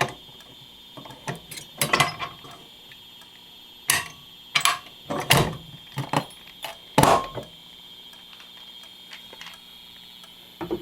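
Irregular metallic clicks and knocks from an Edwards 270SPO fire alarm pull station being opened and its handle reset, over a faint steady high-pitched tone.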